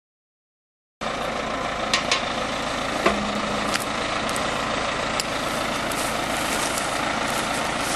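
Heavy diesel machinery running steadily, with a few sharp clicks; the sound cuts in about a second in.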